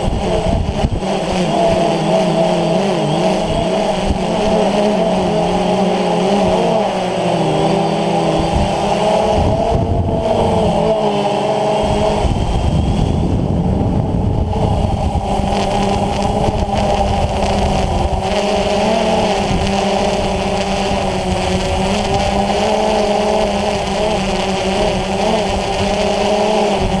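DJI Phantom FC40 quadcopter's brushless motors and DJI 9450 propellers, heard from the onboard GoPro: a steady buzzing whine whose pitch wavers slightly as the throttle shifts. A low rumble grows stronger about halfway through.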